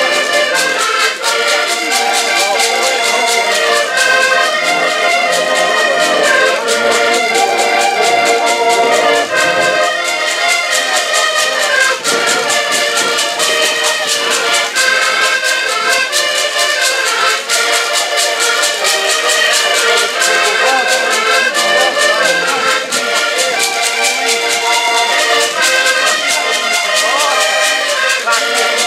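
An ensemble of accordions playing a tune together, with the notes changing steadily, over a fast, even tapping beat.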